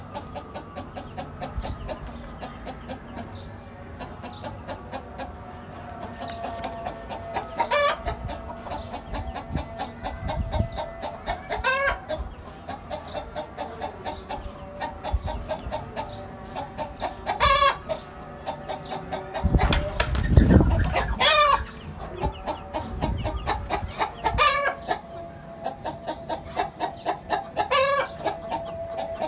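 Chickens clucking and calling, with about six louder calls coming every four to five seconds. A brief noisy burst comes about two-thirds of the way through.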